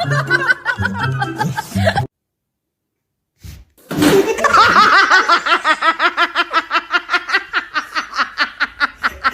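Music with a heavy, rhythmic bass beat that cuts off abruptly about two seconds in. After a brief silence comes a long run of rapid, high-pitched laughter, about five or six bursts a second.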